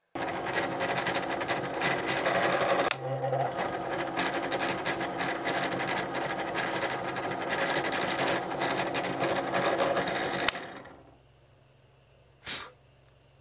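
Benchtop drill press running and drilling a small hole through a thin metal strip, a dense steady rattling whir. About ten seconds in the motor is switched off and spins down, leaving a faint hum, with a brief knock near the end.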